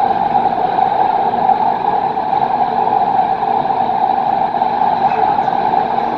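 Driverless metro train running through a tunnel, heard from inside the front car: a loud, steady running noise with a strong mid-pitched hum that doesn't change.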